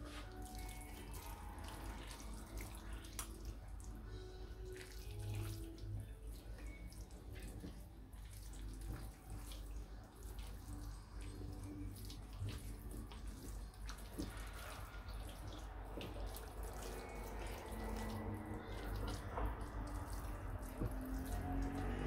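Wet squelching and squishing of hands massaging a herb marinade into a raw whole chicken and working it under the skin, with many small irregular smacks.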